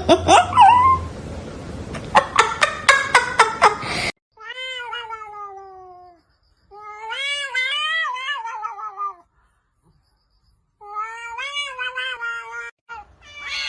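A cat meowing in three long, drawn-out calls with pauses between them, the first falling in pitch and the second wavering up and down. Before them comes a quick run of sharp clicks.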